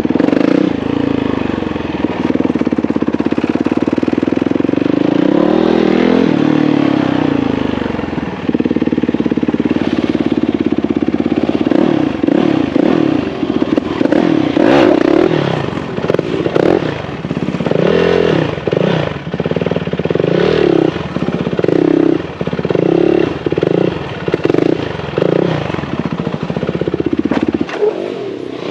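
Motorcycle engine running steadily, its pitch dipping and climbing about six seconds in. Through the second half it is revved on and off, about once a second.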